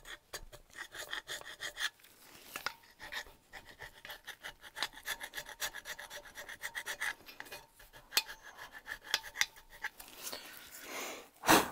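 A hand gasket scraper scraping old gasket residue off an aluminium engine block deck in quick, repeated short strokes. There is a louder knock just before the end.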